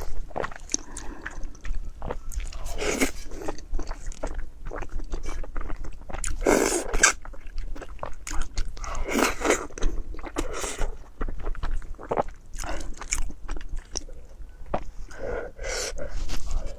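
Close-miked eating of rice and noodles: chewing and biting in short, irregular bursts with wet mouth clicks, a few of them louder.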